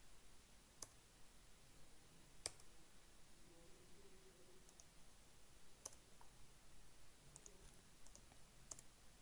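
Near silence broken by a few sparse, faint clicks of computer keyboard keys, the loudest about two and a half seconds in.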